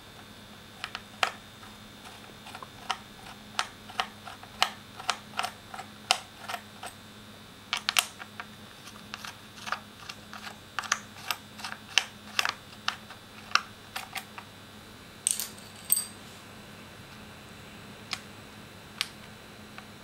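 Phillips screwdriver unscrewing a laptop's hard-drive mounting screws: a run of small, sharp, irregular clicks and ticks as the bit works in the screw heads, with a couple of louder clicks about fifteen seconds in, over a faint steady hum.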